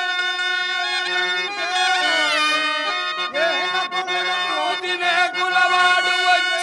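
Harmonium playing long held notes while a voice sings a drawn-out, wavering melody over it, with pitch slides near the start and middle.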